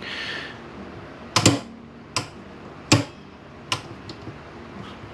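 Small metal parts clicking and tapping as a carburetor assembly is handled: about five sharp, irregular clicks with fainter ticks between them, the loudest about one and a half and three seconds in.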